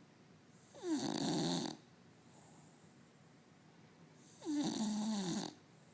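English bulldog snoring in its sleep: two loud snores about three and a half seconds apart, each lasting about a second, with the pitch dropping as each one begins.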